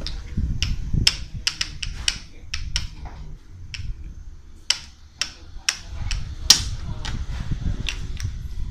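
Plastic bottle caps used as checkers pieces clicking against a wooden board as they are moved and taken. It is an irregular run of some twenty sharp clicks over a low rumble.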